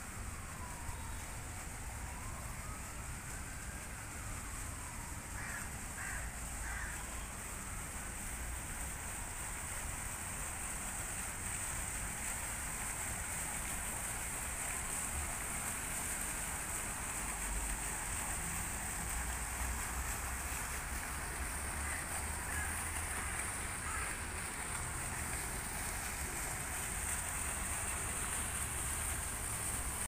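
Water splashing from a small fountain jet and rock cascade into a pond, a steady rushing hiss over low city traffic rumble, growing a little louder over time. A faint siren wails slowly up and down during the first several seconds.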